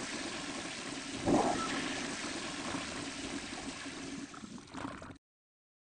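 Toilet flushing: a steady rush of water with a fresh surge about a second in. The sound cuts off abruptly about five seconds in.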